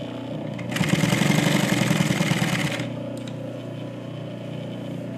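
Industrial sewing machine stitching zipper tape to cushion fabric: a fast, even run of needle strokes about a second in, lasting about two seconds, then stopping. A steady hum sounds before and after the run.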